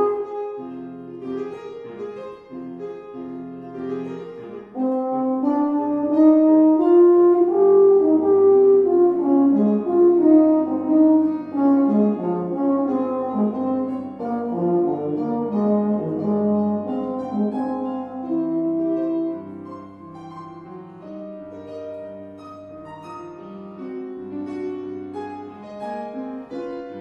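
Baritone horn playing a slow melodic solo line with grand piano accompaniment. The music grows quieter about two-thirds of the way through.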